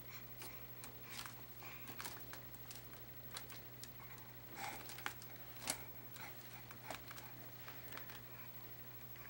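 Faint scattered taps, clicks and light rustling as a baby handles books and papers in a basket, with a few sharper taps midway, over a low steady hum.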